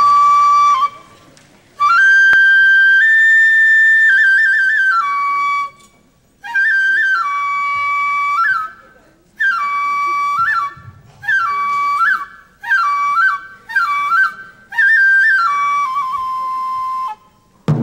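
Solo Japanese transverse flute playing a slow, unaccompanied melody of held high notes with quick trill-like turns, in phrases broken by short pauses.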